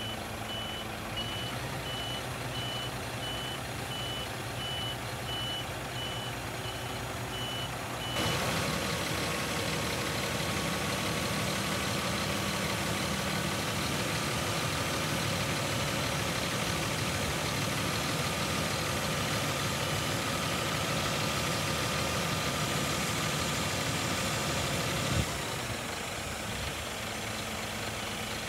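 Scania R400 truck idling with its warning beeper sounding a regular run of high beeps. About eight seconds in, the engine speeds up and the Multilift XR hooklift's hydraulics run with a steady whine as the hook arm swings. Near the end it drops back with a single clunk.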